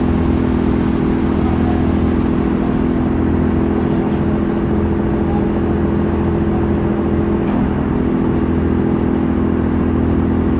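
A car ferry's engine running steadily: a loud, even hum with a low rumble beneath it, its pitch shifting slightly about seven and a half seconds in.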